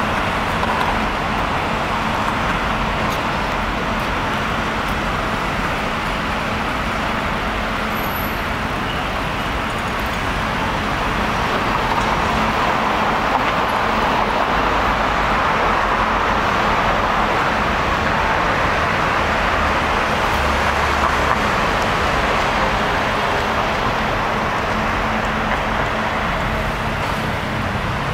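Steady road traffic noise: a continuous wash of passing cars and other vehicles, with a low rumble under it.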